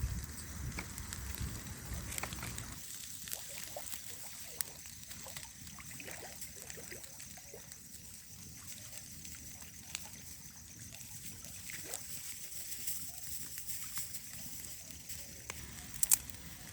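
Campfire crackling, with scattered sharp pops and snaps over a steady hiss, as the fire burns hot under foil-wrapped meat. A low rumble fills the first few seconds.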